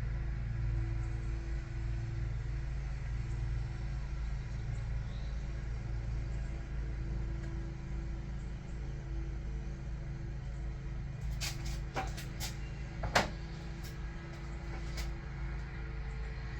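Steady low workshop hum, with a handful of light clicks and one sharp tap or knock about two-thirds of the way through as tools and engine parts are handled.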